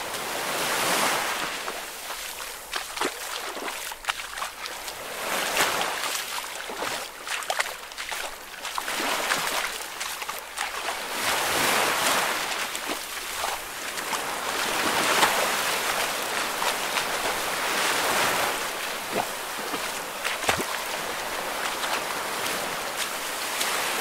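Ocean waves washing in and out, swelling and ebbing every few seconds, with scattered short clicks through the wash.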